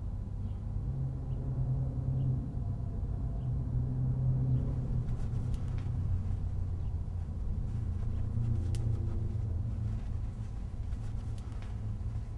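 Low, steady rumble of distant city traffic, with a few faint clicks about halfway through and near the end.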